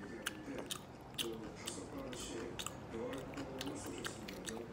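A cat chewing wetly as it eats from a plate, a string of small irregular clicks and smacks.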